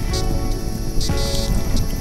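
Film score: sustained held tones layered with recurring short bursts of hiss that come and go about once or twice a second.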